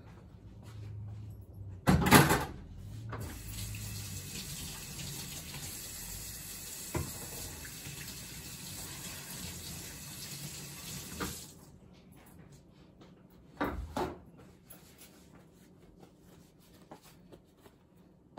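Kitchen sink tap turned on, water running steadily into the sink for about ten seconds, then shut off. A loud clunk as the water starts and a couple of knocks a few seconds after it stops.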